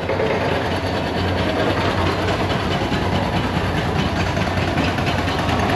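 Idling heavy engines making a steady low hum under a constant noisy din.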